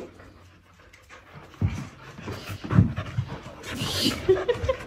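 Samoyed dog panting, starting about a second and a half in as quick, breathy strokes.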